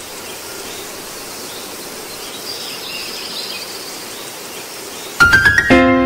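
Steady ambient noise from the stadium during a night football match, with faint high chirping in it. About five seconds in, background music cuts in loudly with a quick run of struck notes that settle into a held chord.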